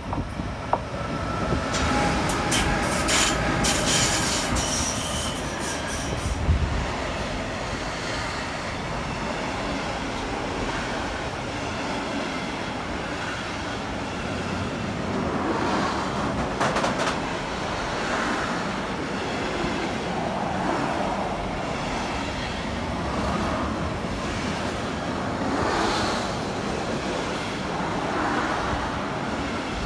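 A train rolling past with its wheels squealing against the rails in the first few seconds, then a steady rumble and clatter of the cars running by.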